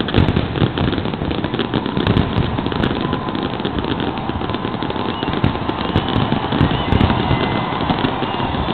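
Large fireworks display: shells bursting in quick, unbroken succession, a dense run of bangs and crackling with no pause.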